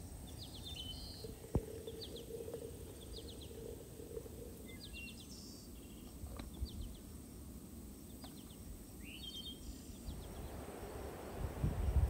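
Outdoor ambience with small birds chirping in short repeated phrases, and a single sharp click about a second and a half in. A low rushing noise grows louder near the end.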